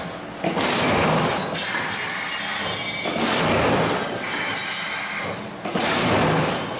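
Cincinnati 2CC10 power shear running and cycling: a steady, noisy machine run that dips and picks up again about every two and a half to three seconds, once per cutting stroke.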